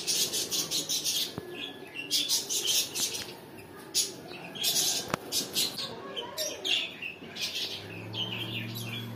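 Small birds chirping over and over in quick, irregular runs of high notes. Near the end a low steady hum sets in beneath the chirps.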